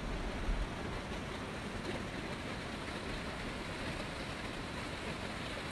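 Ocean surf washing onto a sandy beach as a steady rush of noise. Wind buffets the microphone with low rumbles in the first second.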